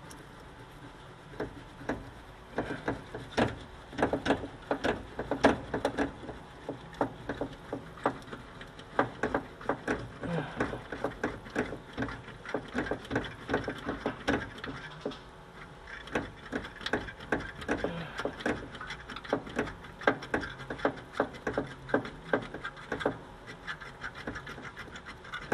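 Irregular clicks and light metallic knocks from hand work on a VW T2 bus's gas pedal assembly in the footwell, coming in uneven clusters.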